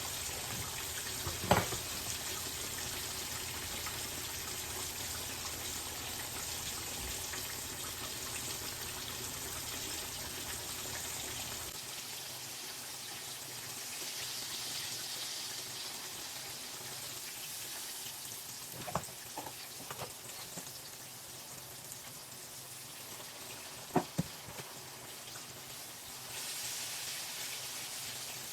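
Meat frying in a skillet, with a steady sizzle and a few sharp clinks. A low hum stops about a third of the way through.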